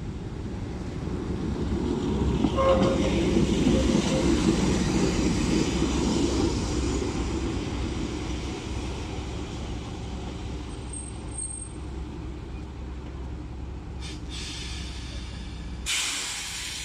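Lxd2 narrow-gauge diesel locomotive running light past along the track. Its engine and wheels rumble, loudest a few seconds in as it goes by, then fade as it pulls away. A sudden burst of hiss comes near the end.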